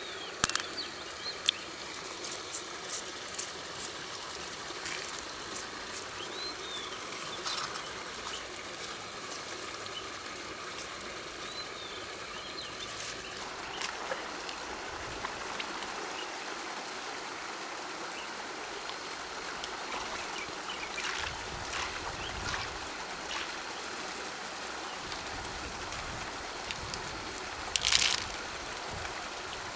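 River water trickling and flowing, with a steady high-pitched buzz that cuts off suddenly about halfway through. Scattered short clicks sound throughout, and a louder splash-like burst comes near the end.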